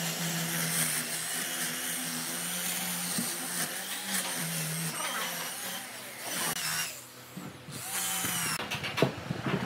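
Angle grinder with an abrasive disc working the bark of a tree stump: a steady motor whine that shifts in pitch as it is pressed into the wood and winds down about six and a half seconds in. Then an electric drill with a spinning brush attachment starts on the stump, with rapid scraping clicks near the end.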